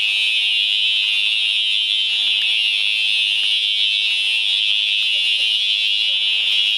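Building fire alarm sounding continuously, a harsh, steady, high-pitched tone with no breaks. It is a false alarm, which the guests take for a prank.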